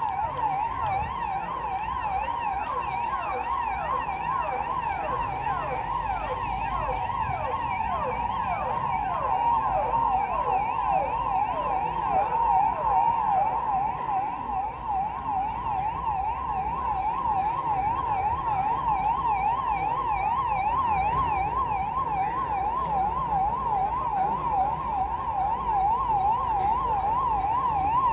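Sirens of arriving motorcade escort vehicles. One siren warbles fast and steadily up and down. For about the first half a second siren is heard as well, sweeping downward again and again. The sirens grow louder toward the end as the vehicles come in.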